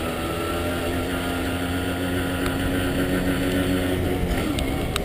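Motorcycle engine running under way at a fairly steady pitch, with the engine note dropping off about four and a half seconds in.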